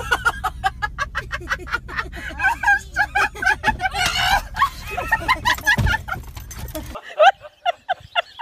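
Turkeys calling in quick runs of repeated gobbling notes over a steady low hum. The hum cuts off about seven seconds in while the calls go on.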